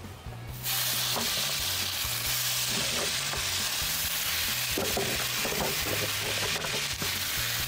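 Pulled mutton snapper meat sizzling in a hot skillet on a kamado grill: a steady frying hiss that starts abruptly under a second in.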